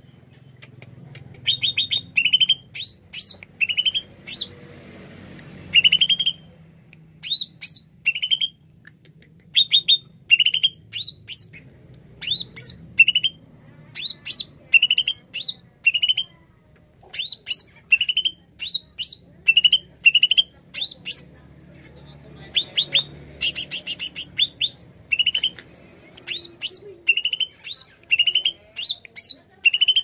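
Cucak ijo (greater green leafbird) singing: short, loud phrases of sharp, rapidly falling whistled notes, repeated about once a second with brief pauses. About three-quarters of the way through comes a denser, buzzier burst.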